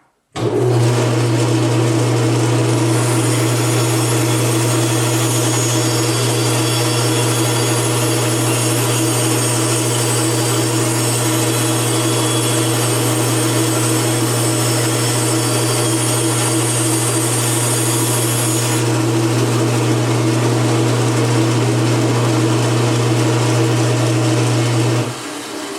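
Bandsaw running and cutting through a block of wood: a steady motor hum under the hiss of the blade in the wood. It starts about half a second in, and the hum stops shortly before the end.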